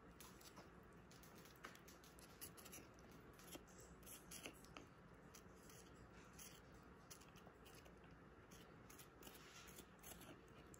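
Faint, irregular clicks of a blue-and-gold macaw's beak biting and chewing a plum held in a hand.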